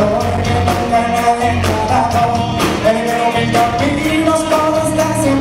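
Live band playing a song with a steady beat: a man sings the lead line over electric guitar, keyboard, bass and drums.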